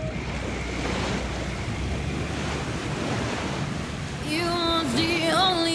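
Wind rumbling on the microphone over the wash of choppy water. About four seconds in, a song with a wavering sung voice starts.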